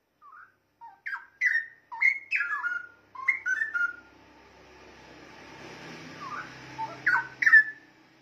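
Straw-headed bulbul (cucak rowo) singing: a run of loud, liquid whistled notes that glide up and down, a pause of a few seconds with only faint hiss, then another short phrase of notes near the end.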